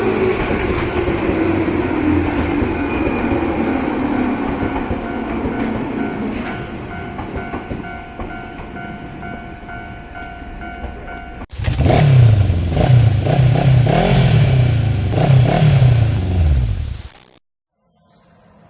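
Train running, with clatter and a slowly falling tone. About eleven seconds in it cuts to a different, louder recording of a low droning sound whose pitch wavers, which stops a few seconds later.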